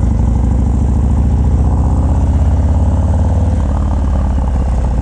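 Harley-Davidson FXDR's Milwaukee-Eight V-twin, fitted with a 117 kit, idling loudly through a Bassani Road Rage exhaust with a steady, lumpy pulse.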